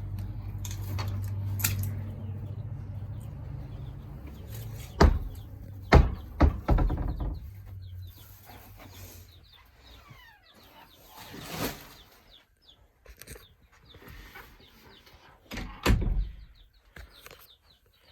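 Young chickens chirping over and over in short, high, sliding peeps. Several loud knocks come about five and six seconds in and again near the end, and a low rumble runs through the first several seconds.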